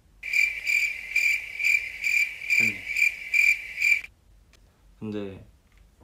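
Cricket chirping sound effect: a high, pulsing chirp repeating about two to three times a second, starting suddenly and cutting off about four seconds in, the stock 'crickets' cue for an awkward silence.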